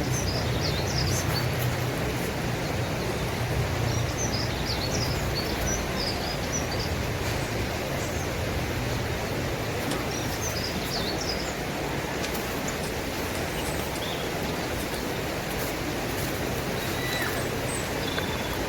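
Small birds chirping in short bursts, at the start, a few seconds in, and again about ten seconds in, over a steady rushing noise with a low rumble in the first several seconds.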